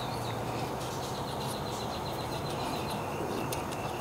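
Steady background noise with a low hum and a faint, thin high tone through the first three seconds. No clear sound of the tightening work stands out.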